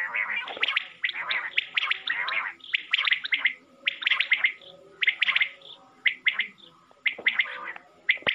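Common quail calling: short groups of sharp, quick notes repeated about once a second, with rougher, throaty sounds between some groups.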